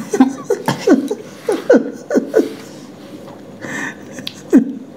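A man laughing in a string of short chuckles, each falling in pitch, with a breathy exhale and one last chuckle near the end.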